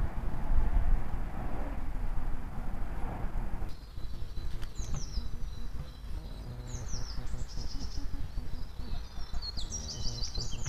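Low rumbling noise that cuts off abruptly about four seconds in. Then small songbirds in the dawn chorus give short high chirps, ending in a fast trill near the end.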